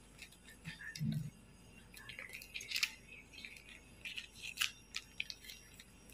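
Clear plastic wrapper of a sheet of nail glue stickers crinkling as it is handled, in scattered short crackles, with a soft low thump about a second in.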